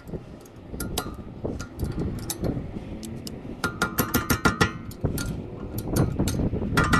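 Hand tools clinking and knocking against a rear brake caliper: a quick string of sharp clicks and taps, with bursts of ringing metallic clinks about halfway through and again near the end.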